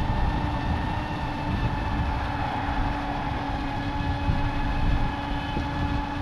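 Wind buffeting the microphone: a steady low rumble with a faint steady hum over it.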